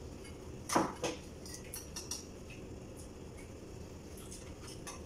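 Table noise of a meal: a few faint clicks and taps of plates and cutlery, with two louder knocks about a second in.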